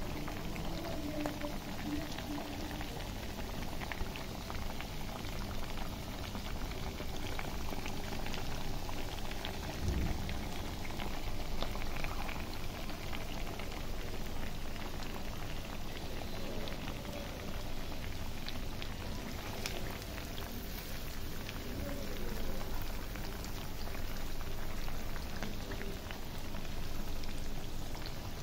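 Chunks of beef deep-frying in bubbling hot oil: a steady sizzle full of fine crackles and pops.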